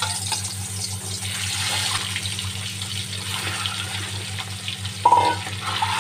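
Whole boiled eggs sizzling and bubbling in hot mustard oil in a steel kadhai, a steady frying hiss. A brief louder sound about five seconds in.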